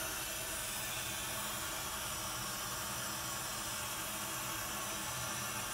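Water running steadily from a bathtub tap into the tub: a continuous, even hiss.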